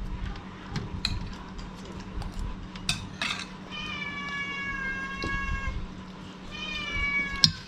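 Cat meowing in two long, drawn-out calls, the first about two seconds long and both falling slightly in pitch, over the clinking of cutlery and dishes. A sharp clink comes near the end.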